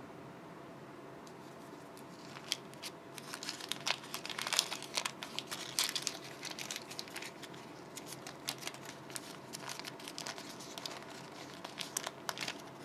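Crinkling of a steamed cake's baking cup liner being peeled off by hand: a run of sharp crackles from about two seconds in, busiest in the middle, tapering off near the end.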